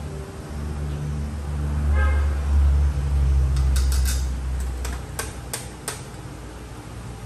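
A low rumble swells and fades over a few seconds. As it dies away, a quick run of sharp clicks and taps follows as a portafilter is handled at an espresso grinder.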